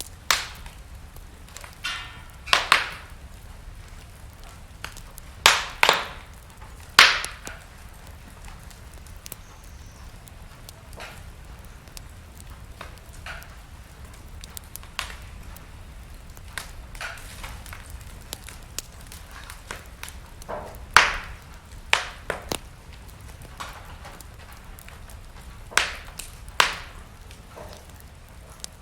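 Wood fire burning in a fireplace: sharp, irregular pops and snaps, several in quick clusters, over a low steady rumble and faint crackling between them.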